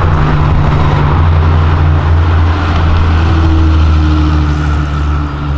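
Classic Porsche 911 Carrera's air-cooled flat-six engine running as the car drives slowly past, a loud, steady low engine note.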